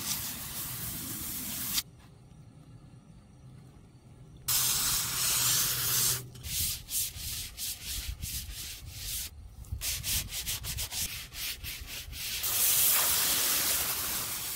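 Garden hose spray nozzle hissing as water hits a weathered wooden 4x4 post, alternating with the wet wood being scrubbed in quick back-and-forth strokes; the spray comes back near the end.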